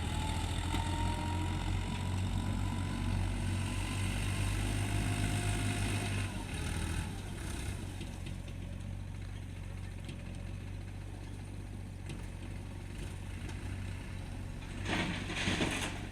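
Heavy diesel engine running steadily, louder for the first third or so and then settling lower. A brief louder noise comes near the end.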